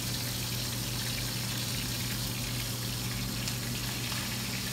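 Chicken breast sizzling in hot oil in a sauté pan: a continuous hiss over a steady low hum.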